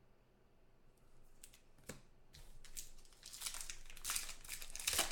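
A trading-card pack wrapper crinkling and tearing as it is opened by hand, starting about a second in with scattered crackles and growing to its loudest near the end.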